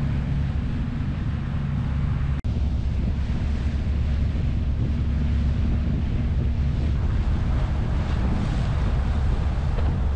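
Wind buffeting the microphone over the steady low drone of a boat's engine and the wash of water along the hull, with a brief cut-out about two and a half seconds in.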